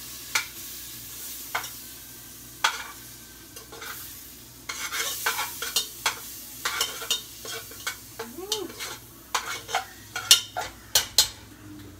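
Butter sizzling as it melts in a hot pot, stirred with a spoon that clicks and taps against the pot; the taps come thick and fast in the second half.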